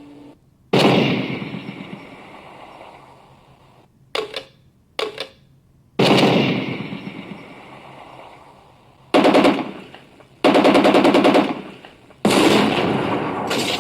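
RC tank sound board playing gunfire effects through a loudspeaker. There is a heavy cannon shot with a long fading tail about a second in and another at six seconds, two short clicks between them, then rapid machine-gun bursts near the end.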